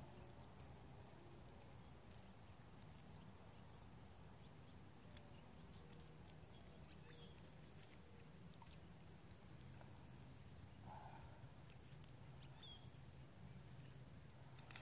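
Near silence: faint outdoor ambience with a steady low hum and a few faint, short chirps.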